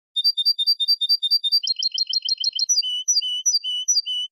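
European goldfinch singing a clean Malaga-style competition song. It runs through a string of rapid repeated high notes, then a quick trill, then four slower, evenly spaced repeated notes.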